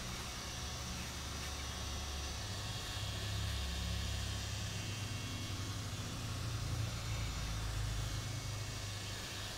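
Hot air gun blowing steadily, a hiss with a low airy rumble that swells through the middle, as it heats a phone's cracked display to soften the adhesive holding it.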